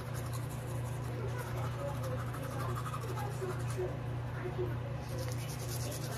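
Toothbrush scrubbing against teeth, a scratchy brushing sound with a steady low hum underneath.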